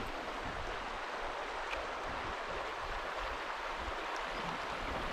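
Steady rush of a shallow river riffle, water running over gravel.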